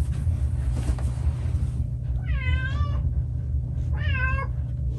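A cat meowing twice: a drawn-out meow that drops in pitch at its end, then a shorter one about a second later, over a steady low hum.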